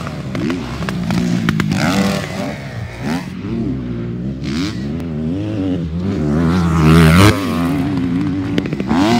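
Motocross dirt bike engine revving hard, its pitch climbing and dropping again and again as the rider opens and shuts the throttle and shifts gears. The loudest rev comes about seven seconds in.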